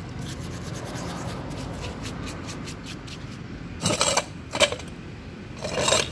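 Paintbrush bristles scrubbing the wet, greasy crankcase of a dismantled motorcycle engine coated in a detergent-and-petrol cleaner. Quick light brushing strokes come first, then three louder scrubs in the last two seconds.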